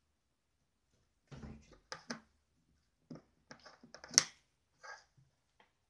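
Irregular light taps, clicks and scuffs as a kitten bats at and grabs a plastic wand toy on a wooden tabletop, with one sharp click about four seconds in.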